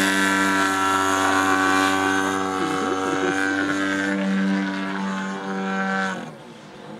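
Engine of a radio-controlled aerobatic model plane running at a steady high pitch in flight, then dropping away sharply about six seconds in.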